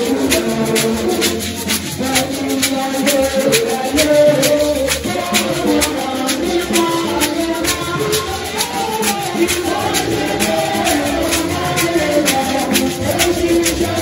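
Several shekere, dried gourd rattles wrapped in nets of beads, shaken together in a brisk, steady beat, with voices singing along.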